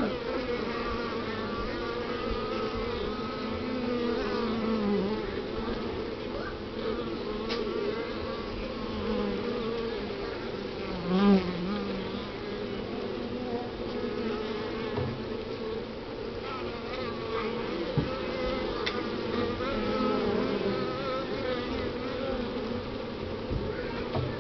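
Honeybee colony humming on the comb of an open top-bar hive: a steady drone of many wings, with single bees buzzing in and out of it and one louder buzz about eleven seconds in.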